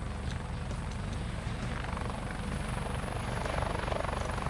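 Helicopter sound effect: a steady, rapid rotor chop over engine noise, standing in for the toy rescue helicopter's flight.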